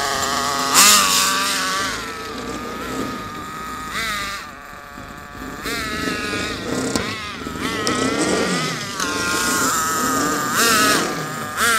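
Small two-stroke nitro glow engine of an Acme Cyclone Pro remote control car running, revving up and falling back again several times as the throttle is blipped.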